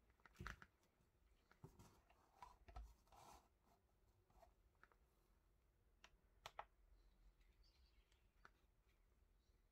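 Faint handling sounds as a digital kitchen scale is slid and lifted on a felt surface and a nylon knife sheath is pushed aside, with a few light knocks and rustles. A sharp double click about six and a half seconds in, when the scale is switched on, and one more light click about two seconds later.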